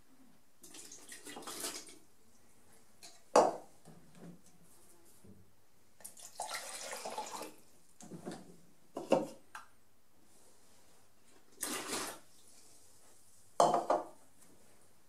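Plastic measuring beaker being rinsed out with water: two spells of splashing water and several sharp knocks and clinks as the beaker is handled.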